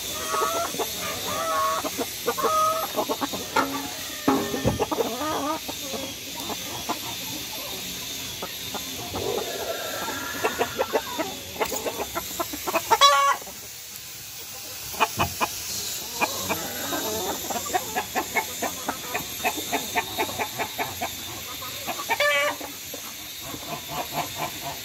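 A flock of hens clucking as they forage, with one loud squawk about halfway through. Quick runs of sharp taps follow it, the sound of beaks pecking at the dirt.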